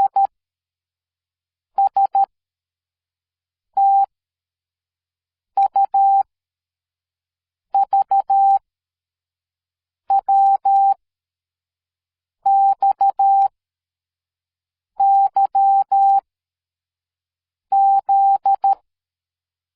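Morse code sent as a single steady beep tone, keyed on and off in short dots and longer dashes. Nine separate characters are sent, each a quick group of beeps, with about two seconds of silence between them.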